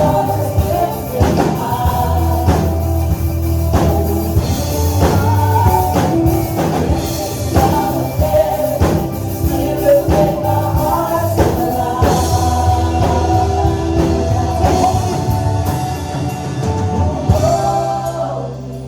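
Live worship band with drums playing and singers holding notes, with the drums dropping out near the end, leaving a softer sustained pad.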